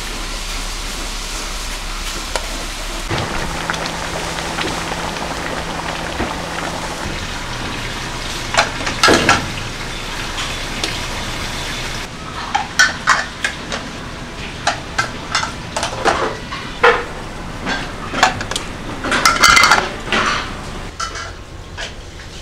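Small metal pots of braised fish simmering and sizzling over gas burners, a steady hiss. About halfway through this gives way to a run of sharp metallic clanks and knocks as the metal pot lids are handled and pots set against one another.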